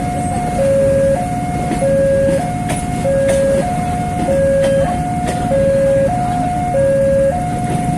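Railway level-crossing warning signal sounding its electronic two-tone alarm, switching between a lower and a higher tone a little less than twice a second, over a steady low rumble.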